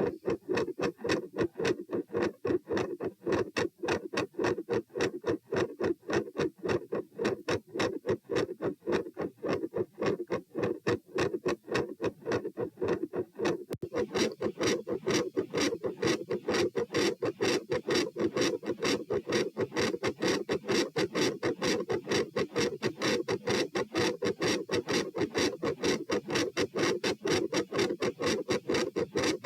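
Recorded heartbeat sounds repeating in a steady rhythm. About halfway through, the recording switches to a second take in which the beats sound brighter.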